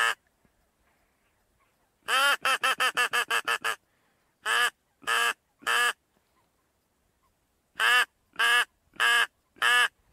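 Loud, close duck quacking. A quick run of about nine quacks comes a couple of seconds in, then three evenly spaced quacks, then four more near the end.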